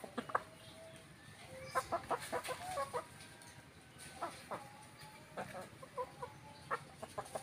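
Free-range ayam kampung (Indonesian village) chickens clucking: short clucks scattered through, with a quick run of them about two seconds in.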